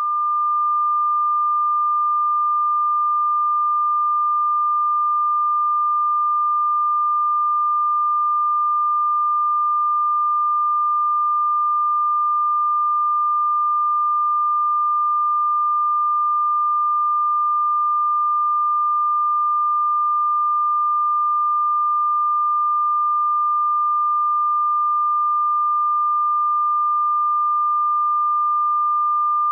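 Television colour-bars test tone after sign-off: a single steady, unbroken high-pitched sine tone that marks the station as off the air.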